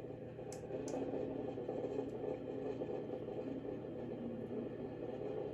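Steady cabin hum of a Boeing 737 MAX 8 on the ground before takeoff, with its CFM LEAP-1B engines at idle, heard from inside the passenger cabin. There are two faint clicks about half a second and a second in.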